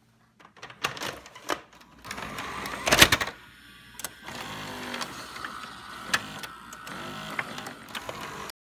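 Video cassette recorder mechanism loading and starting a tape: a run of clicks and clunks over a mechanical whir, with the loudest clunk about three seconds in. It cuts off suddenly near the end.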